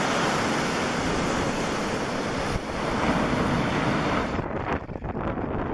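Wind rushing over the microphone, a steady hiss that about four seconds in thins to quieter, uneven gusts.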